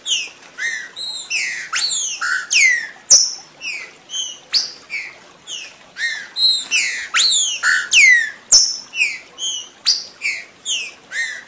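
Green-winged saltator (trinca-ferro) song: a fast, continuous run of short, loud whistled notes, many sliding downward, about three a second, with a few sharp clicks among them.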